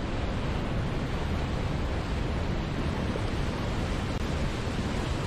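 Rushing river water pouring over rocky rapids, a steady, even rush of water.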